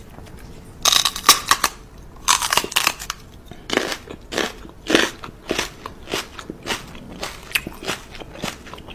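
Close, wet smacking and licking sounds as a small chihuahua-type dog licks at a woman's lips: short clicky smacks in two quick bursts near the start, then about two a second.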